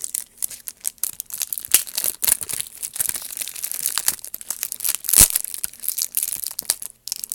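Plastic wrapper on a pack of trading cards crinkling and tearing as it is pulled open by hand, a run of irregular crackles with one sharp crack about five seconds in, stopping shortly before the end.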